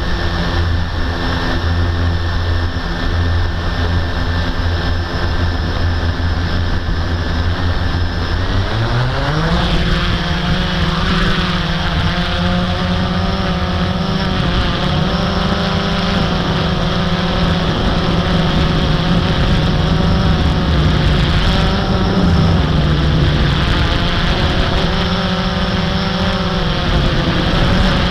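Blade 350 QX quadcopter's four brushless motors and propellers running, first at a low steady pitch, then rising in pitch about nine seconds in as the throttle comes up, and holding the higher pitch with small rises and dips.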